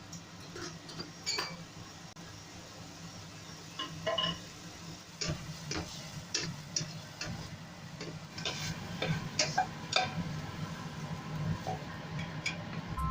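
Spoon and tableware clinking: a string of irregular light clicks and knocks of dishes being handled, some ringing briefly, over a steady low hum.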